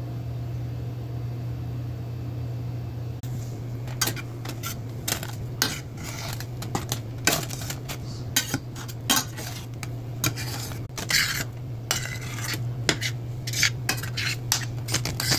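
Metal slotted spatula and spoon scraping and clinking against a stainless steel pan while stirring oatmeal, irregular sharp clicks and scrapes starting about three to four seconds in. A steady low hum runs underneath.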